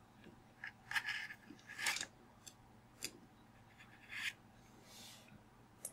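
Steel vernier caliper sliding and closing on a tablet's edge: faint metal scrapes and small clicks from the sliding jaw, a handful of short sounds spread through.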